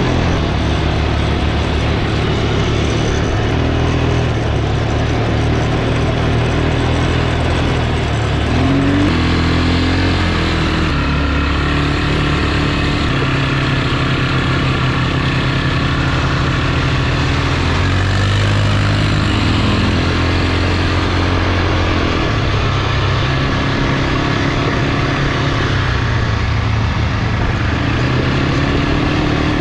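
Quad bike (ATV) engine running steadily as the rider drives, its pitch rising and falling a few times with the throttle, over a constant noisy rush.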